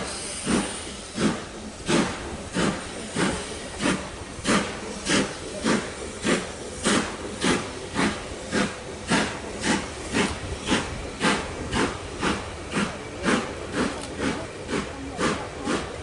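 Steam locomotive working hard as it pulls its train away: a steady run of exhaust chuffs about two a second, quickening slightly as it gains speed, over a continuous steam hiss.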